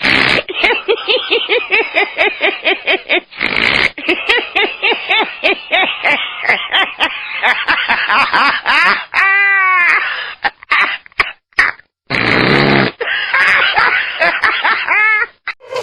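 A run of different recorded human laughs cut one after another: rapid, rhythmic 'ha-ha-ha' bursts, with abrupt switches between laughers and a drawn-out squealing laugh about two-thirds of the way through.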